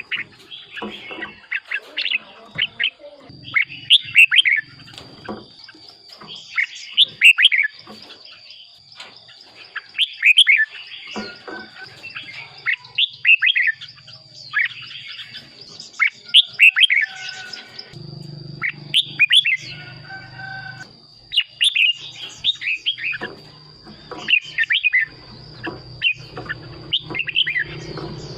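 Red-whiskered bulbul singing: short phrases of quick, bright whistled notes, repeated every second or two.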